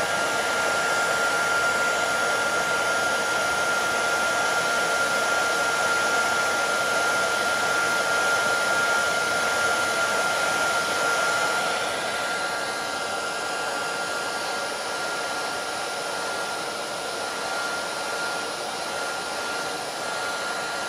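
Heat gun blowing hot air onto the fins of an aluminum radiator to dry the cleaned leak spots. It is a steady rush of air with a thin high fan whine, a little quieter from about twelve seconds in.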